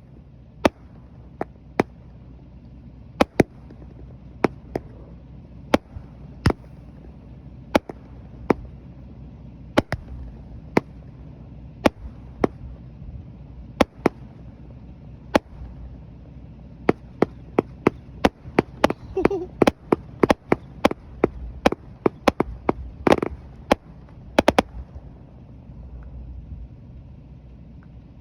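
Small firecrackers popping one after another: sharp single cracks about once a second, then a quick run of many cracks, after which the popping stops.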